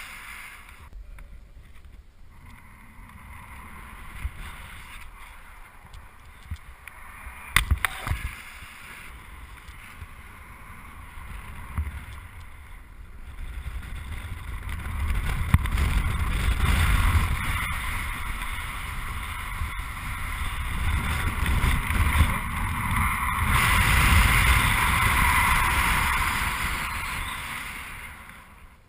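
Wind rushing over a GoPro's microphone in paragliding flight, a steady noise that swells and grows louder through the second half. A few sharp knocks come about a quarter of the way in.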